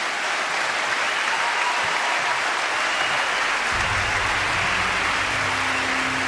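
Large audience applauding steadily. Music comes in low underneath about four seconds in.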